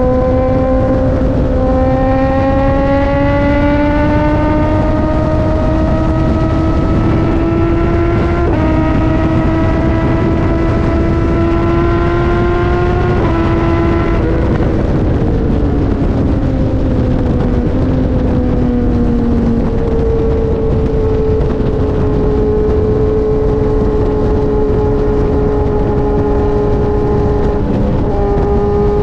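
BMW S1000RR inline-four running through an Austin Racing GP1R full Inconel exhaust. The engine note climbs steadily under acceleration for about 13 seconds with two brief breaks, then falls away and settles to a steady cruise, with wind rushing throughout.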